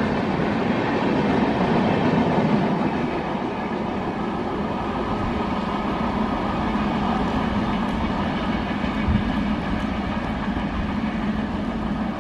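An express train's LHB passenger coaches running past at speed: a steady rumble and rattle of wheels on the rails as the tail of the train goes by and pulls away.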